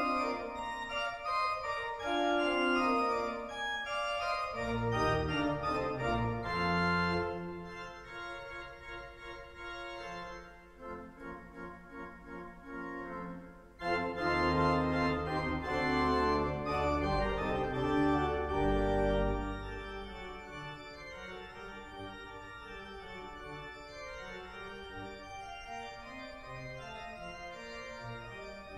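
Church pipe organ playing: loud, full chords with deep pedal bass, dropping to a softer passage about eight seconds in, coming back in loudly with low bass notes at about fourteen seconds, then settling into a quieter, steadier texture for the last third.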